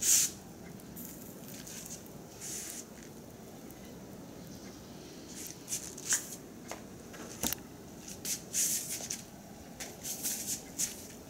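Chicken skewers grilling over a charcoal barrel grill, with irregular short crackles and sizzling pops from the hot coals. The loudest pop comes right at the start, and bunches of crackles follow in the second half.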